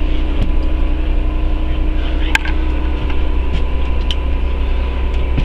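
Steady drone of an engine running, heard from inside the RV cabin, with a low hum and a few constant tones. A sharp click sounds a little over two seconds in, and a fainter one about four seconds in.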